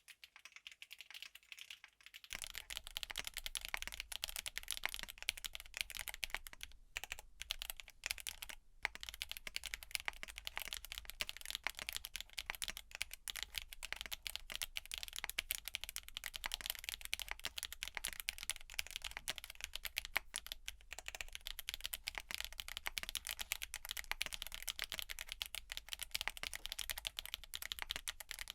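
Continuous fast typing on a TX66 sandwich-mount mechanical keyboard with factory-lubed GEON Black tactile switches, an aluminium plate, case foam and CMK BOW keycaps, giving a clacky sound. About two seconds in the sound turns fuller and louder, as the recording moves from the camera's microphone to an AT2020 condenser microphone. The typing stops briefly twice, near a third of the way through.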